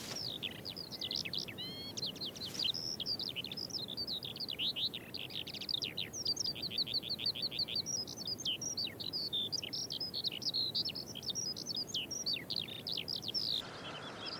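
A songbird singing a long, unbroken run of rapid, varied high chirps and trills. The song cuts off suddenly near the end, leaving a quieter outdoor background.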